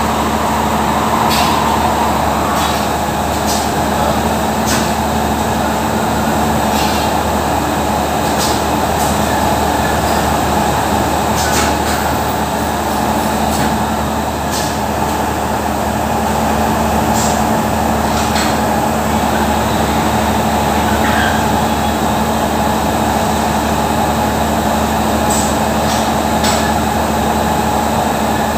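Steady, loud drone of workshop machinery with a constant hum, and scattered sharp clicks and knocks.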